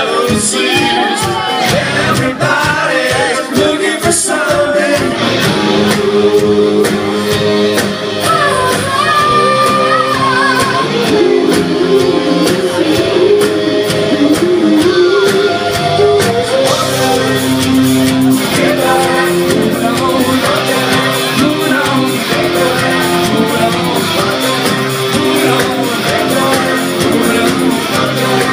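Live rock band performing loudly in a club: a singer over electric guitars and drums, with the room's echo.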